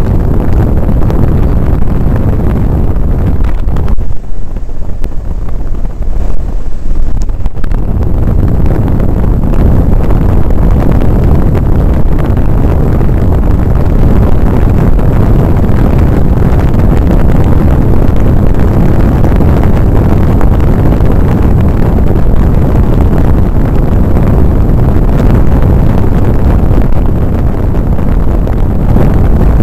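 Wind buffeting hard on the microphone of a motorcycle rider's camera while riding at speed, with the motorcycle's engine running underneath. Loud throughout, gusting unevenly for the first several seconds, then steady.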